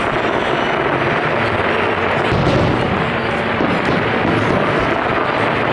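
Fireworks going off in a dense, unbroken barrage: many booms and bursts overlapping with no pause between them.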